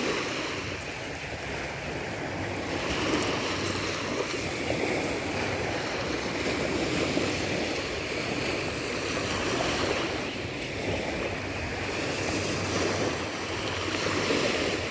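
Small sea waves breaking and washing up a gravelly shore, the surf swelling and easing every few seconds.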